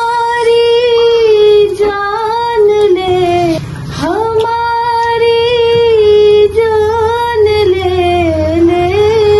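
A high voice sings a slow Urdu love song without accompaniment. It holds long notes that dip in pitch at the ends of phrases, in two long phrases with a short breath about four seconds in.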